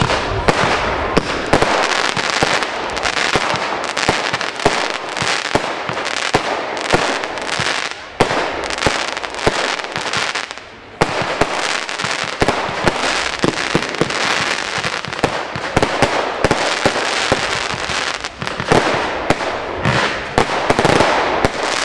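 Lesli 'Böse Schwiegermutter' consumer firework battery (408 g net explosive mass) firing, a dense, continuous run of bangs and crackle, with short lulls about eight and eleven seconds in.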